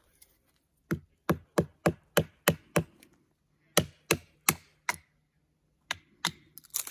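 Wooden baton knocking down repeatedly to split a block of firewood, about fourteen sharp wooden knocks in three quick runs with short pauses between.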